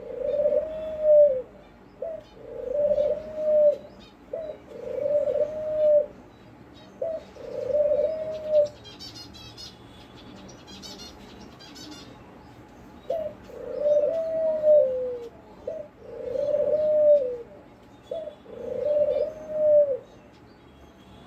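Ringneck (Barbary) dove cooing: a short note then a longer arched coo, repeated about every two seconds, about seven times in all, with a pause of a few seconds in the middle. Faint high chirping comes during the pause.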